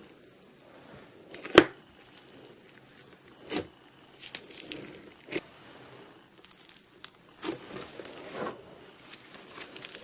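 Slime being worked by hand, making irregular crackles and sharp pops. The loudest pop comes about one and a half seconds in.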